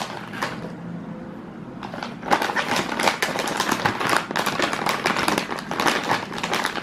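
Crinkly foil crisp packet of Lay's salted egg chips crackling as it is handled and pulled open at the top. It is fairly quiet at first, then crackles loudly and continuously from about two seconds in.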